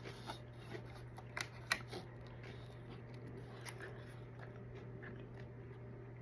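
Crisp bites and chewing of a fried crab rangoon dipped in mustard: a few sharp crunches about a second and a half in and another near four seconds, with soft chewing in between.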